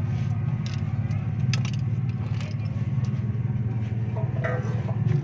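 A motor or engine running steadily with a low, fluttering hum, with a few faint metallic clicks over it.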